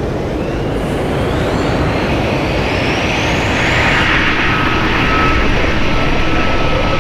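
Jaguar Vector V20E battery-electric race boat running at full speed: a loud rush of water and wind with a high electric whine that rises in pitch over the first few seconds.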